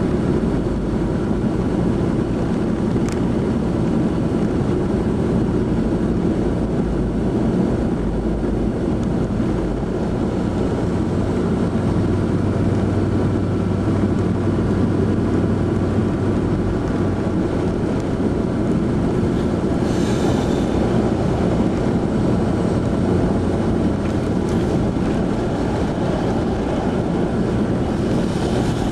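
Steady engine and tyre noise of a vehicle driving on a snow-covered road, heard from inside the cabin.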